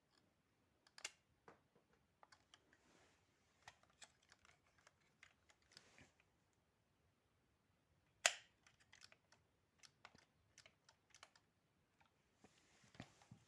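Plastic Playmobil toy pieces handled, giving faint, scattered clicks and taps, with one sharper click about eight seconds in.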